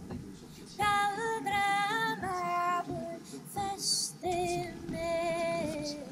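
A woman singing a melody in held notes, some of them wavering, starting about a second in.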